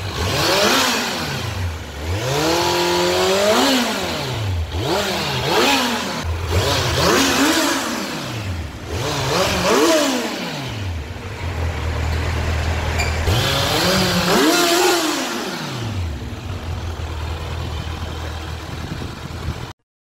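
Kawasaki Z900's inline-four engine through its stock exhaust, free-revved at a standstill: about six throttle blips that rise and fall in pitch, each dropping back to a steady idle, with a longer idle near the end. The sound cuts off abruptly just before the end.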